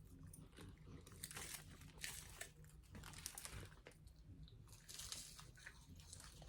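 Faint, irregular crunching and crinkling from a flaky puff pastry snack with hazelnut cocoa cream being broken apart and chewed.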